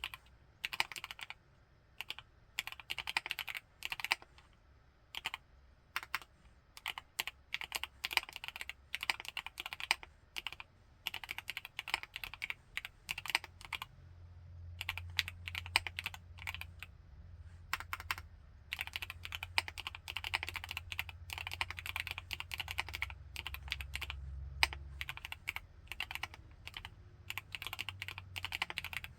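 Typing on a Createkeebs High65 V2 mechanical keyboard with Gateron CJ linear switches: fast, crisp, high-pitched key clacks from an aluminium gasket-mount case, in irregular bursts with short pauses. A faint low hum joins underneath about halfway through.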